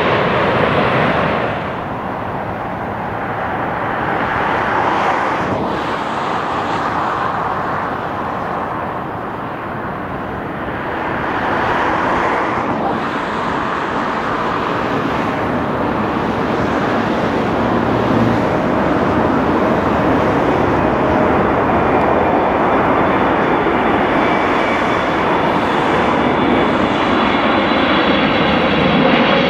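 Jet airliners on final approach. The tail end of a Boeing 787-9 passing low overhead drops away about two seconds in. Then a Boeing 777-300ER's engine noise builds steadily as it nears, with high whining tones rising out of the roar toward the end.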